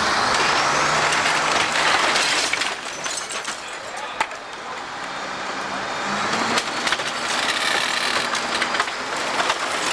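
Building demolition: wood and debris cracking and crashing as the structure is torn apart, loudest in the first few seconds, with a heavy machine's engine running underneath.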